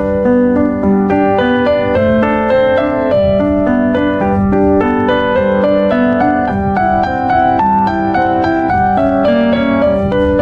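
Background piano music: a steady run of quick notes over a held low note.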